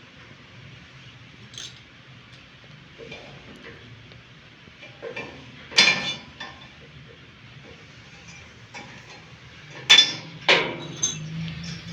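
Scattered sharp knocks from hand-tool work on a bed base being repaired. There are about half a dozen in all, and the loudest two come about six and ten seconds in.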